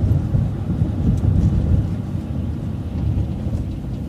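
Transit bus driving along a city street, heard from inside: a steady low rumble of engine and road noise.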